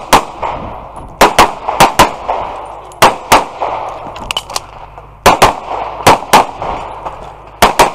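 Semi-automatic pistol fired in quick pairs of shots, the two shots of each pair a fraction of a second apart, about six pairs spaced a second or two apart. Each shot carries a short ringing echo.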